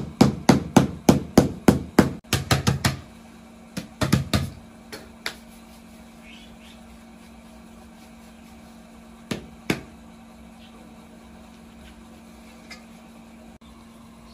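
Small hammer tapping in a quick run on an upturned aluminium basin used as a casting pattern in sand, about three or four taps a second, then a few scattered taps. Two sharp slaps follow about halfway through.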